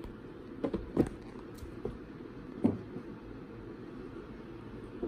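Balinese kittens playing with a feather wand toy on carpet: a few soft thumps and knocks, the loudest about a second in and again just past the middle, over a low steady room hum.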